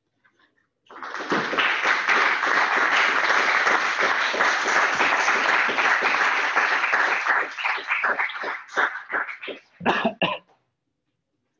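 Audience applauding, starting about a second in and thinning to a few scattered claps near the end.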